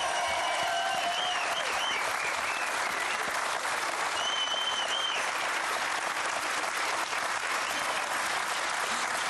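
Studio audience applauding steadily, with a couple of shrill whistles over it in the first half.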